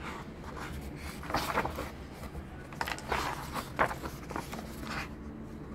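A page of a hardcover picture book being turned by hand: several bursts of paper rustling and sliding, loudest a little over a second in and again around three to four seconds in.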